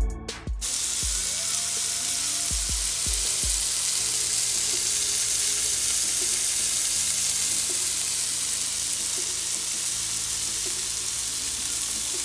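Boneless pork loin chops frying in butter in a hot skillet: a steady, loud sizzle. A few low thumps come between about two and three and a half seconds in.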